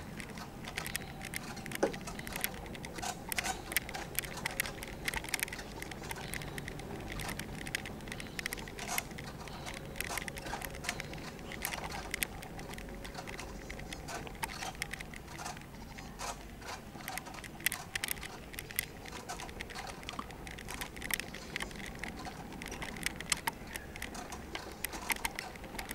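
Dense, irregular light clicking and rattling of wheels rolling slowly over brick paving, with a faint steady hum underneath.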